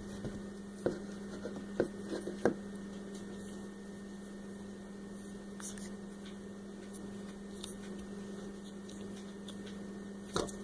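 Steady low electrical hum, with a few faint clicks and taps of small plastic toy pieces being handled, several in the first couple of seconds and one more near the end.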